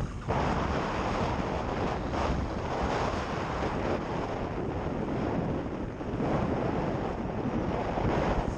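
Wind rushing over a GoPro's microphone at skiing speed, mixed with the hiss and scrape of skis on snow: a loud, steady, surging rush.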